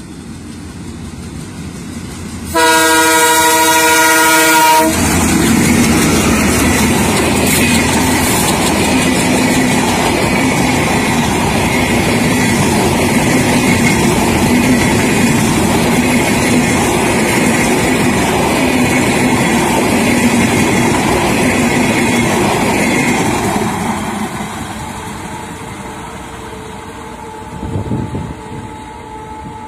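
Benapole Express diesel train passing through a station without stopping. The noise of the approaching train builds, then the locomotive horn gives one blast of about two and a half seconds. The locomotive and coaches then rumble past at speed for some eighteen seconds, and the noise fades away over the last several seconds.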